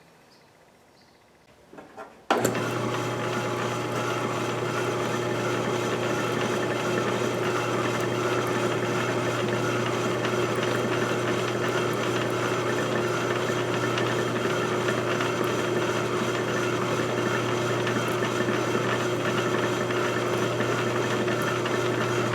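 Electric motor of a bench power tool with a keyed chuck, switched on after a couple of small clicks about two seconds in, then running steadily with a constant low hum and a steady whine.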